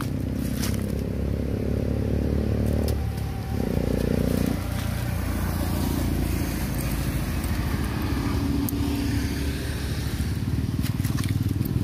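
A motor vehicle's engine running, a low steady hum whose pitch shifts briefly about three to four seconds in.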